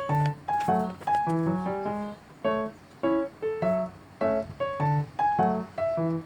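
Background music: a piano melody with chords, notes struck in a steady, regular rhythm.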